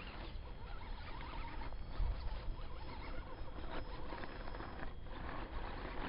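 Radio-control rock crawler driving over rock: its small electric motor whines in short, wavering spurts while the tyres scrabble and grind on the stone, with a bump about two seconds in. Wind rumble on the microphone throughout.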